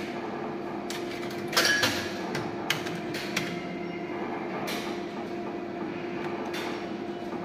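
A coin clatters into the coin mechanism of a bar slot machine about a second and a half in, followed by a few sharp clicks, over a steady hum.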